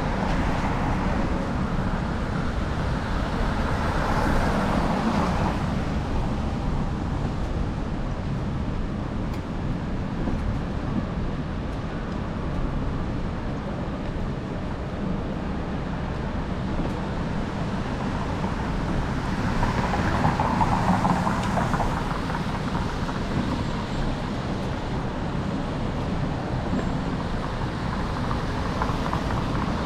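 City street traffic on wet roads: a steady hum of engines and tyres, with a vehicle passing close by about four seconds in and another around twenty seconds.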